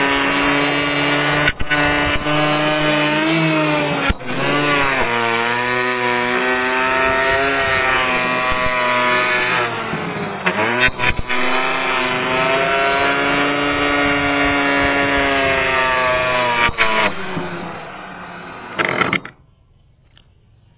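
Electric hand planer running and cutting across a weathered wooden board, its motor pitch sagging and recovering as the blades bite into the wood. The motor is switched off and stops about 19 seconds in.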